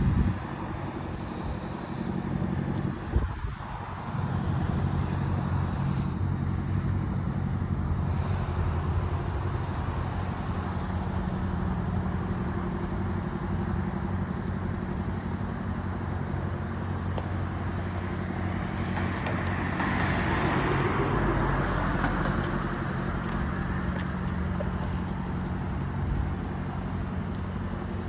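Cat 303.5E2 mini excavator's Cat C1.7 diesel engine running steadily, with a short knock about three seconds in and a louder hiss for a few seconds about two-thirds of the way through.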